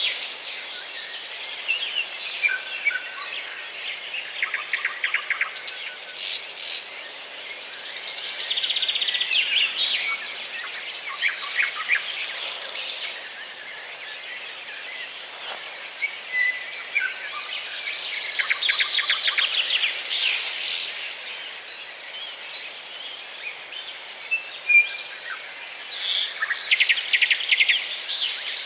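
Small songbirds chirping and twittering, many short high calls and quick trills overlapping, growing busier in several bursts, over a faint steady background hum.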